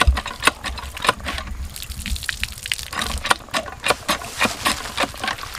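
Water gushing in spurts from the spout of a hand-operated water pump and splashing over hands being washed under it, with many irregular sharp splashes.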